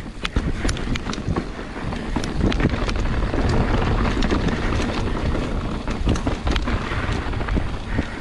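Mountain bike riding down a dirt trail: wind buffeting the microphone over a steady rumble, with frequent sharp clicks and rattles as the bike goes over bumps.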